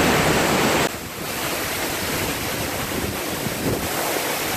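Steady rushing noise of wind buffeting the microphone over falling water. It is heaviest in about the first second, then drops suddenly and goes on a little lower.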